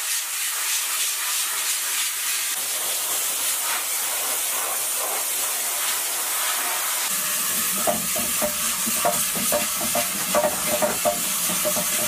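Sandblasting gun hissing steadily as it blasts abrasive onto cast diesel-engine parts to strip rust and grime. In the second half, a run of sharp knocks and rattles joins the hiss.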